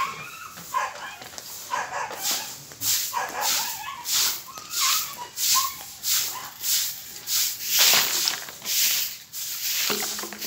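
Brooms sweeping a concrete surface: short scraping strokes about two a second. Short high animal calls sound over the first half.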